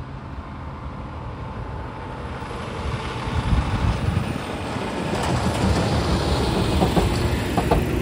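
A heavy truck crossing the railroad tracks. Its engine rumble grows louder from about three seconds in, with a few sharp clanks in the last few seconds.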